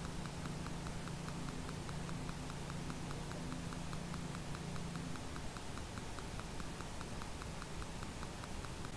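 Quiet room tone with a fast, even ticking, about six ticks a second, and a steady low hum that cuts off about five seconds in.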